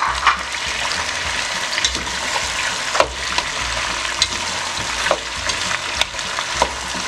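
Beef short ribs and chopped nopales sizzling in a hot pot while being stirred, with a steady frying hiss. Short clicks and scrapes of the stirring utensil against the pot come about once a second.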